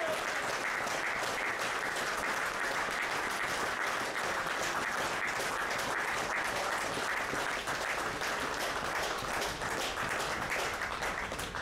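Crowd applauding, a dense, even patter of many hands clapping that drops away near the end.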